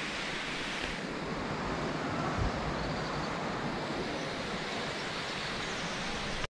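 Steady rushing of water at a cave's mouth, an even noise without breaks, with a light low bump about two and a half seconds in.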